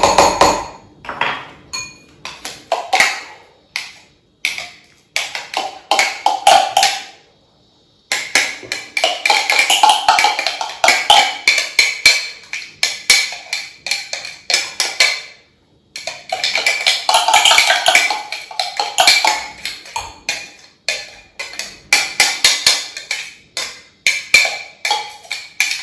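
A metal spoon scraping and tapping minced onion out of a plastic food-processor bowl: rapid clicks and knocks in runs of several seconds, with short pauses between them.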